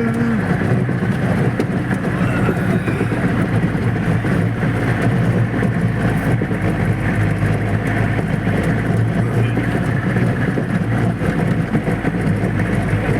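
Off-road jeep running on a forest track, heard from aboard: a steady, unbroken low drone of engine and driving noise.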